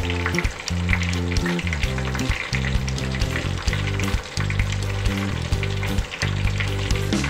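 Whole fish frying in hot oil in a pan, a steady crackling sizzle. Background music with sustained low notes plays under it.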